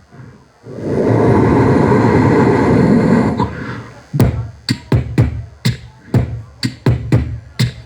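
Beatboxed sound effects: a loud rushing whoosh for about three seconds, then, from about four seconds in, a quick drum-like beat of sharp hits made with the mouth.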